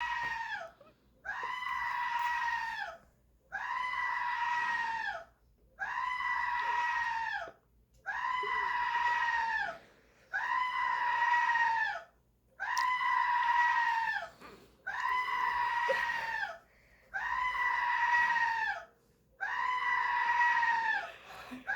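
A screaming animal-call sound effect played on a loop: about ten identical long calls, each held level for under two seconds and dropping at the end, with short gaps between them.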